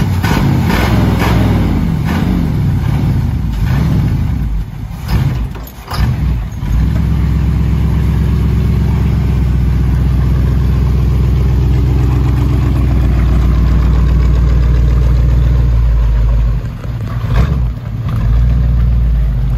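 Carbureted engine of an old Toyota pickup that has sat for years, running again. It revs up and down for the first few seconds, then runs steadily as the truck moves off, with a short dip about 17 seconds in.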